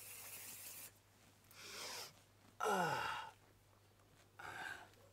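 A man's breathy exhales and a loud groaning sigh that slides down in pitch, about midway. An aerosol spray can hisses in the first second.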